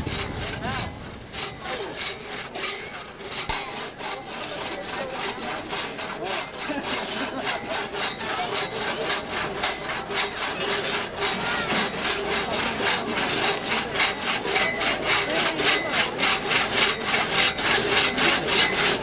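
Hand crosscut saw cutting through a log: a steady rasping back-and-forth of saw strokes, about two to three a second, growing louder toward the end.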